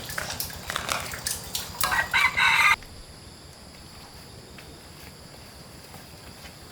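Scattered knocks and clatter, then a loud animal call about two seconds in that cuts off abruptly just before three seconds, leaving a faint steady background.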